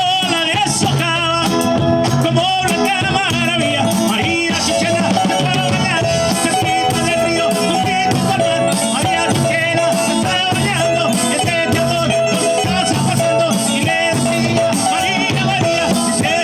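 A band playing a Latin American song with a lead voice singing over steady instrumental backing.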